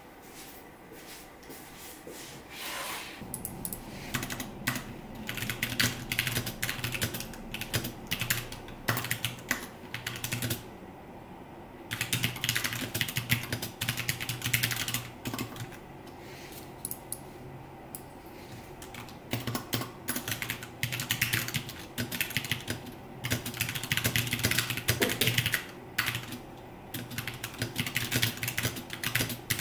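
Mechanical keyboard with newly fitted keycaps being typed on fast: dense runs of key clacks in bursts with short pauses, starting about three seconds in.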